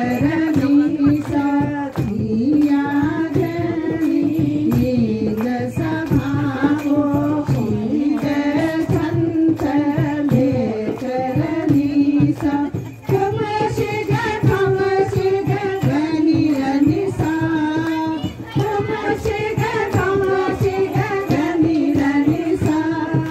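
Traditional folk song sung to a steady, evenly spaced percussion beat for a dance; about halfway through the tune moves higher.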